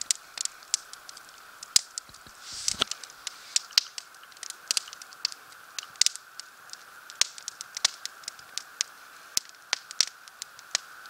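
Wood campfire crackling, with sharp irregular pops several times a second over a steady faint high drone. A brief low rush sounds about two and a half seconds in.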